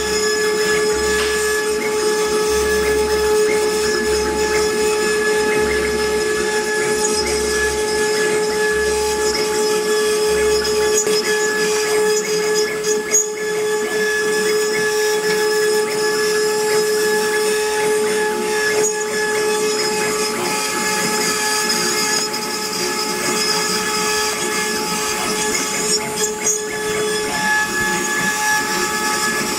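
CNC wood-carving router running: a steady, whistling spindle whine over a constant hiss. The lowest note of the whine drops out near the end.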